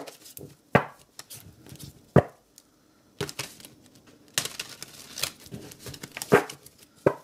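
Tarot cards being shuffled by hand: a few sharp slaps of the deck, then a quick patter of cards flicking and sliding, and two louder snaps near the end.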